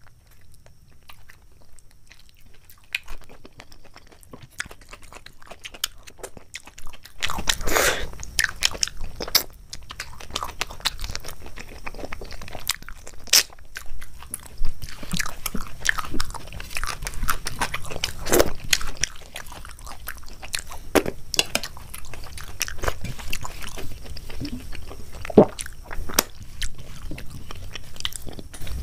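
Close-miked eating: a person biting and chewing crunchy food, soft and sparse for about the first seven seconds, then louder with many sharp cracks and crunches.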